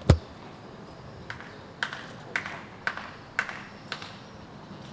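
A single loud thump right at the start, then a tennis ball bounced on a hard court six times, about two bounces a second, as a player prepares to serve.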